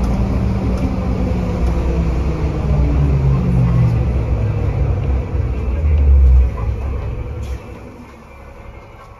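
Cummins ISC diesel engine of a 2001 Nova LFS city bus running under load with a low rumble, heard from inside the bus; its pitch rises about three seconds in, then the sound drops away sharply about seven and a half seconds in as the bus slows.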